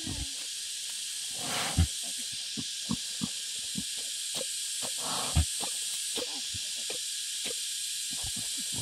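Wild boar sow rooting in soil and leaf litter: two short breathy snorts, about a second and a half and five seconds in, and scattered small crackles of twigs and leaves, over a steady high hiss.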